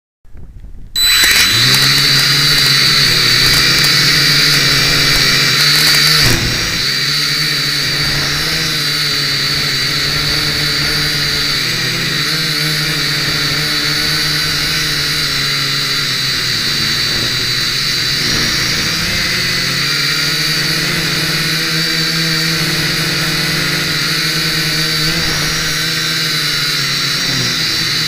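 Blade mQX micro quadcopter's electric motors and propellers whining steadily in flight, heard close up through the camera mounted on the quad. The pitch wavers slightly as the motors work against gusty wind. The sound starts abruptly about a second in and drops a little in level about six seconds in.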